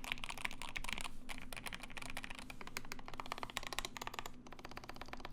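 Fast typing on the Ikki68 Aurora prototype mechanical keyboard: a rapid, continuous run of key presses with a bit of clack.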